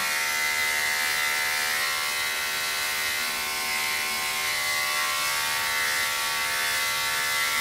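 Electric dog-grooming clippers running with a steady buzz as they trim a miniature schnauzer's hair under the chin and down the chest.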